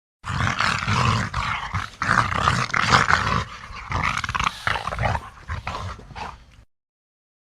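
King Kong giant-ape growling sound effect: a run of rough growls that surge several times, loudest around the middle, then break into short grunts and stop near the end.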